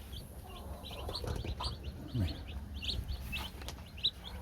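A brooder full of meat-bird chicks peeping: short, high chirps several times a second, coming faster and louder near the end.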